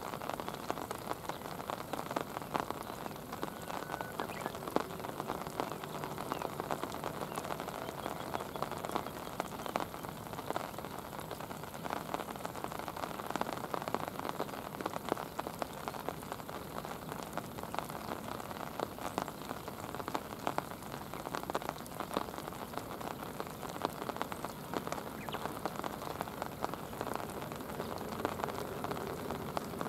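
Steady rain falling on a shallow river, a dense, even hiss of countless small drop impacts on the water.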